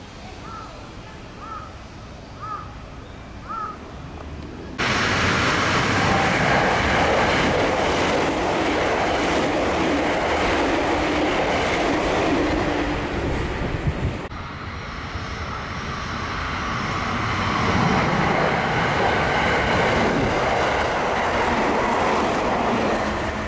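Four short rising chirps about a second apart over quiet background, then, about five seconds in, the loud rush and wheel clatter of an orange-striped JR Central electric multiple-unit train passing through the station at speed without stopping. The noise dips briefly past the midpoint, rises again and starts to fade near the end.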